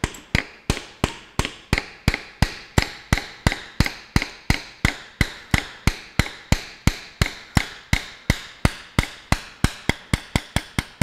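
Light, rhythmic hammer taps on a steel bar levered against a diesel injector, about three strikes a second, each with a short metallic ring. The taps jar the rust-stuck injector loose from the Ferguson 23C cylinder head while the bar holds pressure on it.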